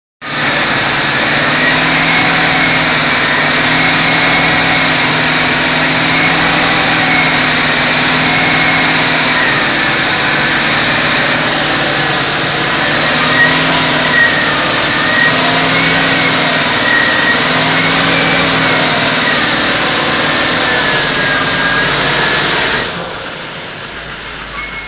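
Vehicle engine running loud and steady at even revs, with a wavering high whine over it; the sound drops away sharply about 23 seconds in.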